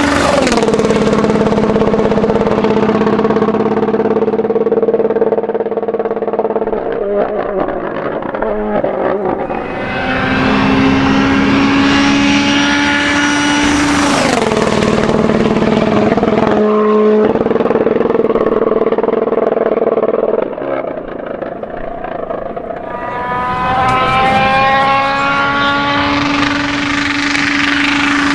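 Rally cars passing one after another at full throttle on a tarmac stage. Each engine climbs through the gears to a high, steady note held for several seconds, and the pitch drops sharply as each car goes by.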